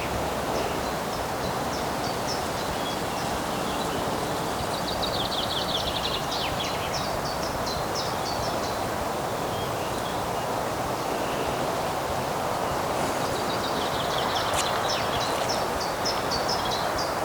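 Songbirds singing in short chirps and quick trills, in two spells, over a steady rushing background.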